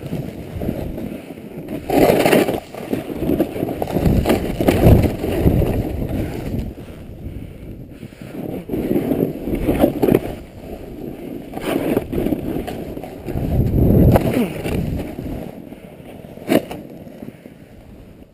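Snowboard sliding and carving through snow, a rough rushing noise that swells and fades with each turn. A single sharp click comes late on, and the noise dies down near the end.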